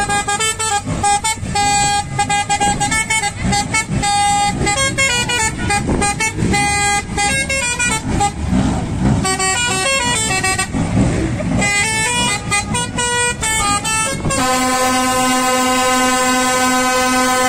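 Telolet horn on a lorry, a multi-tone musical air horn, playing a fast tune of short notes, then holding one long steady chord from about fourteen seconds in.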